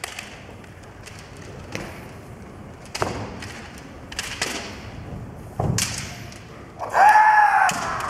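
Kendo fencers' feet stamping and bamboo shinai knocking on a wooden gym floor, several sharp knocks a second or so apart, then a loud kiai shout near the end, its pitch rising and then falling.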